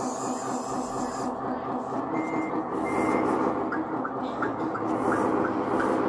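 Scale RC CAT 140H motor grader running, its sound playing a steady diesel engine note, with two short reversing-alarm beeps about two seconds in as it backs along the trailer.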